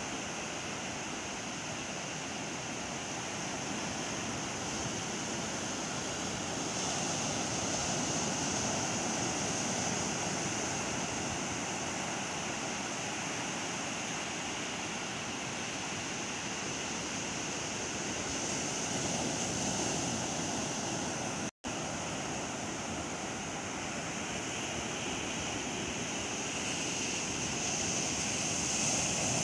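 Sea surf breaking on a sandy beach: a steady wash of noise that swells and eases slowly. It cuts out for an instant about two-thirds of the way through.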